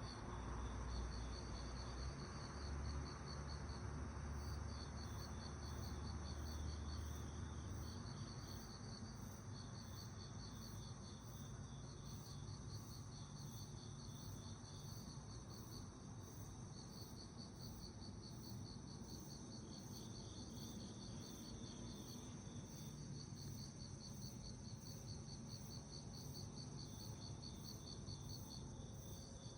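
Crickets chirping: several insects trilling in fast, high-pitched pulse trains that overlap and start and stop, over a low rumble that fades after about eight seconds.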